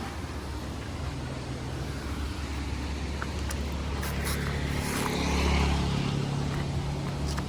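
A motor vehicle's engine hum builds to a peak about five and a half seconds in and then eases off, as it passes by. Underneath is the steady rush of river water, with a few faint clicks.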